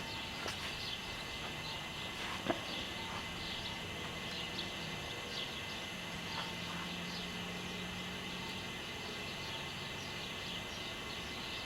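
Quiet outdoor ambience with faint, scattered high-pitched bird chirps. There is a single sharp click about two and a half seconds in.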